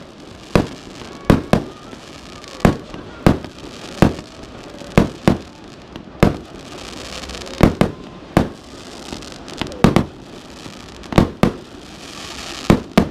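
Aerial fireworks display: shells bursting in an irregular run of sharp bangs, about one or two a second, with crackling and hissing between the bursts.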